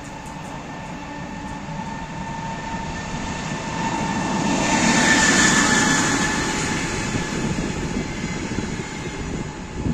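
An EP20 electric locomotive hauling double-decker passenger coaches runs past close by. The wheel-and-rail rolling noise builds to its loudest about five seconds in as the locomotive passes, then settles into the steady rumble of the coaches. A steady whine runs underneath.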